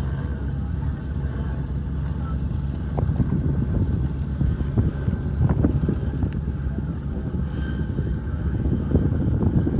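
An engine running steadily with a low, even hum, with gusts and knocks of wind on the microphone.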